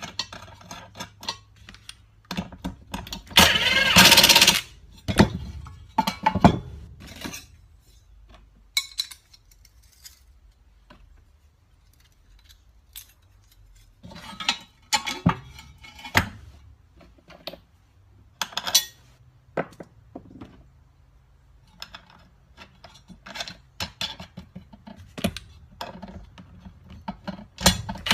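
Steel mower blades, washers and bolts clinking and knocking as they are handled and fitted to the blade plate, with two short loud bursts of about a second each, one near the start and one at the very end.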